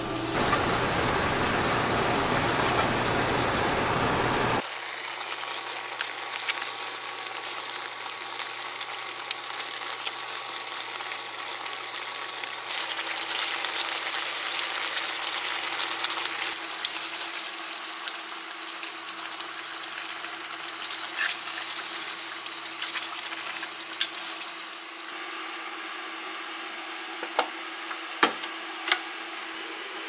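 Duck meat frying in a pan, sizzling, with stirring. A steady low hum runs underneath, and a few sharp clinks come near the end.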